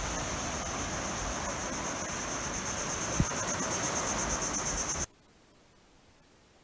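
Insects trilling in a high, rapidly pulsing drone over a steady hiss, with one brief knock about three seconds in; the sound cuts off suddenly about five seconds in, leaving near silence.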